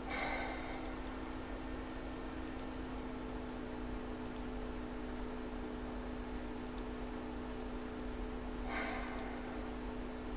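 Light scattered clicks and two brief rustles, one just after the start and one near the end, over a steady electrical hum.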